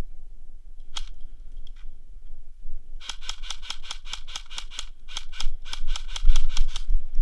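Airsoft gun firing: a single shot about a second in, then a fast string of shots at about five or six a second, with a brief break near the middle, over a steady low rumble.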